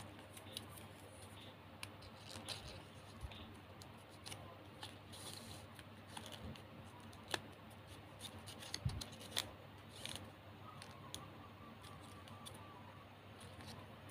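Glossy plastic gift ribbon crinkling and rustling as fingers fold and tuck it, in scattered small clicks and crackles, over a faint low hum.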